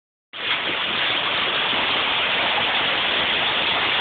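Heavy downpour of rain and hail in a storm, a dense steady hiss of water beating down.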